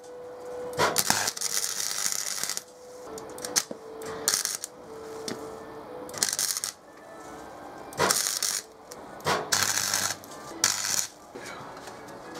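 Electric arc welder laying a series of short tack welds on a car bonnet's broken crossbar: the arc crackles and sizzles in about eight short bursts of a second or less, with pauses between them.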